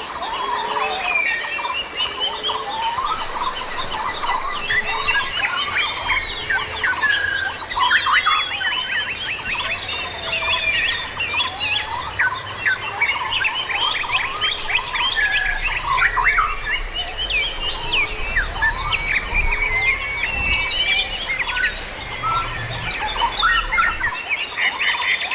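Many birds calling and singing at once, a dense, continuous chorus of overlapping chirps and quick whistled sweeps.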